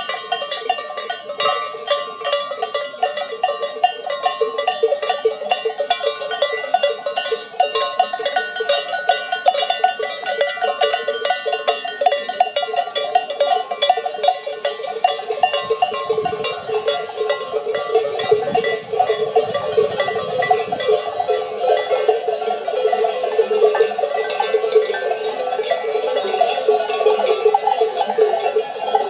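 Dense, continuous jangling of many sheep bells, some 130 traditional Provençal sonnailles (platelles, piques, clavelas and redons), clanking unevenly as the flock walks.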